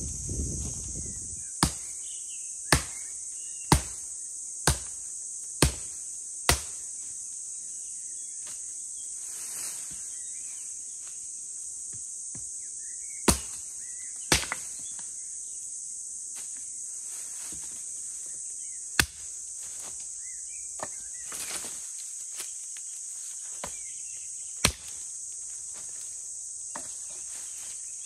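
An axe chopping into wood on the forest floor: six sharp blows about a second apart, then a few more spaced-out strikes, over a steady high drone of insects.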